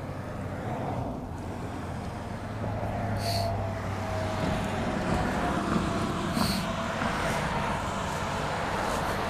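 A motor vehicle on the road beside the bank, its engine hum and tyre noise building over the first few seconds and then holding steady. Two short, high clicks sound about three seconds and six and a half seconds in.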